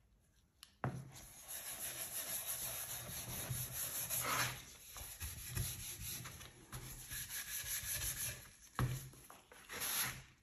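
Sponge and gloved hands rubbing wood oil into a bare wooden board: a continuous scratchy rubbing that starts about a second in, swells louder a few times and breaks off briefly near the end.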